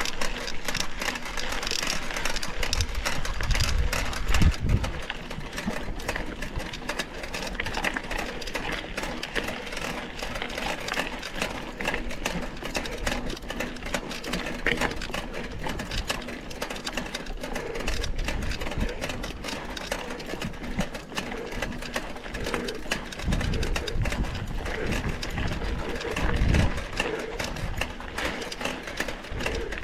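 Mountain bike ridden over a dirt trail, heard from a camera mounted on the bike: a continuous fast rattling and clicking of the bike, with tyre noise. Heavier low rumbles come about four seconds in and again near the end.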